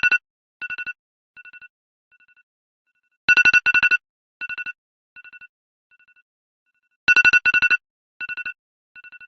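iPhone alarm tone ringing. A loud cluster of rapid beeps repeats about every four seconds, and each cluster is followed by fainter and fainter repeats that fade away.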